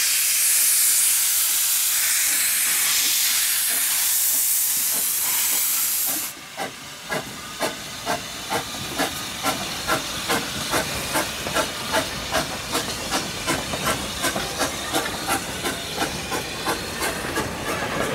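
Steam engine of the Beyer Peacock narrow-gauge tank engine 'The Earl' starting a train: a loud, steady hiss of steam from the open cylinder drain cocks cuts off about six seconds in. It is followed by even exhaust chuffs at about two a second, quickening slightly as the locomotive gets under way.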